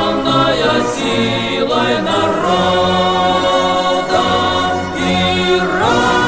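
Choir singing the long held closing chords of an anthem over instrumental accompaniment, rising to a higher held chord near the end.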